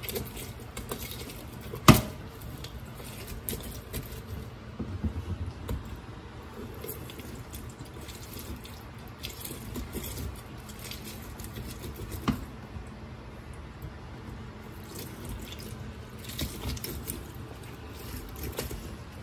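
Orange halves being pressed and twisted by hand on a stainless steel reamer juicer, the juice squishing out and dripping into the bowl. Two sharp knocks stand out, one about two seconds in and another about ten seconds later.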